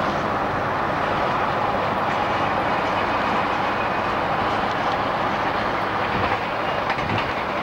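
Freight train of covered hopper cars rolling along the track, a steady rushing clatter of wheels on rail, with a few sharper clicks near the end. Heard from a moving car alongside, with wind and road noise mixed in.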